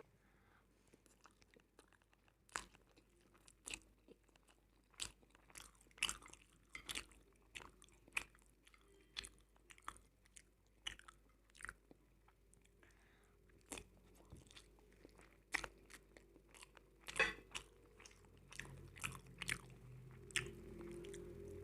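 Close-miked eating: irregular sharp crunches and chewing, typical of potato chips (crisps) being bitten and chewed.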